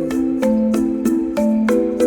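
Background music: struck chords on a mallet-like or keyboard instrument, changing every fraction of a second in a steady rhythm.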